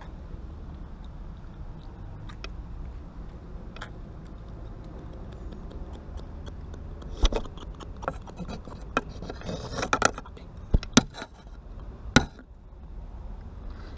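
Scattered sharp clicks, knocks and rustles from handling a fishing rod and a hooked puffer fish while unhooking it, thickest from about seven to twelve seconds in, over a low steady rumble.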